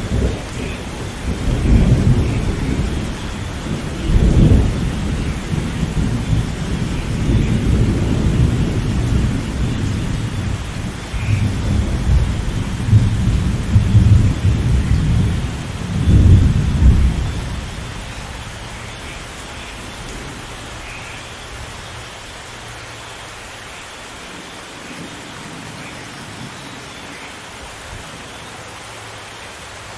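Rain falling steadily with a long roll of thunder that swells several times and dies away about eighteen seconds in, leaving only the rain.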